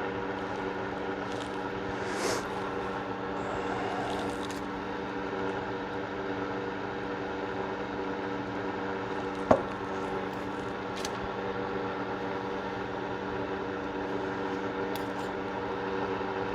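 A steady machine-like hum of several held tones, with a few light clicks and scrapes of pistol parts and cleaning tools being handled, the sharpest click about halfway through.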